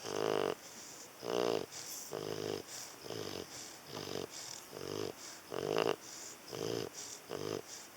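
St. Bernard snoring in its sleep, a snore about every second, some breaths much louder than others.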